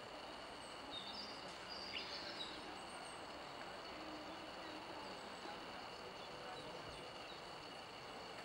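Faint outdoor ambience: a steady low hiss with a brief high bird chirp about a second in.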